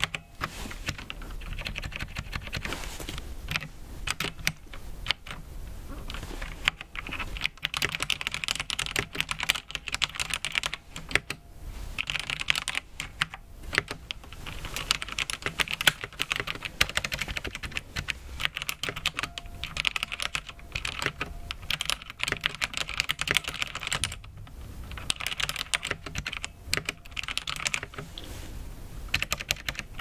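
Typing on a mechanical keyboard with brown (tactile) switches: quick runs of keystroke clicks with a few short pauses.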